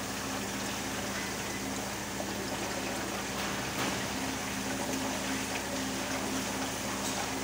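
Water jets spraying inside upturned 5-gallon bottles on the rinsing nozzles of an automatic 3-in-1 bottling machine, over the steady hum of its pump.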